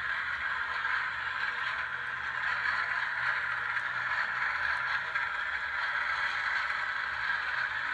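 HO-scale Bowser streetcar model running along its track: a steady whirring hiss with a faint low hum underneath.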